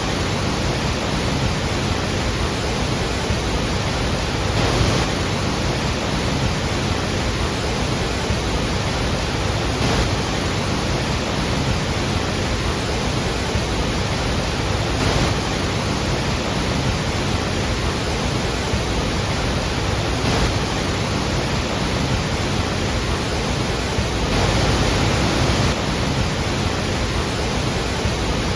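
Large waterfall pouring, a steady dense rush of water noise with no break.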